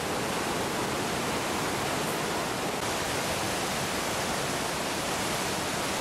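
Whitewater rapids of the Niagara River above the falls rushing, a loud, steady noise of churning water.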